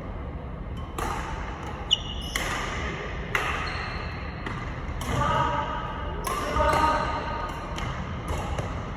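Badminton rackets striking shuttlecocks on the courts, sharp hits about once a second, echoing in a large sports hall.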